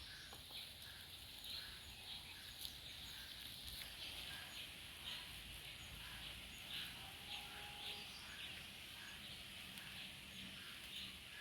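Faint outdoor chorus of birds and insects, with a short chirp repeating about every two-thirds of a second.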